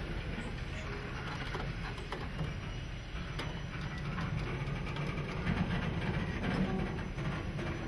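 Railway wagons rolling slowly past on the track: a steady low rumble of steel wheels with faint scattered ticks.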